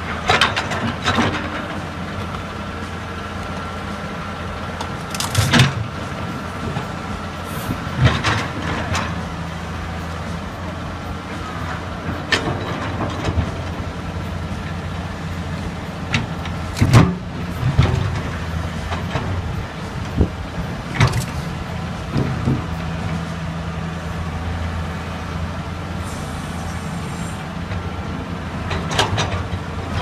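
Small crawler excavator's diesel engine running steadily under load, with a thin whine in the first several seconds and sharp metallic knocks every few seconds as the bucket and arm work the ditch; the loudest knock comes a little past halfway.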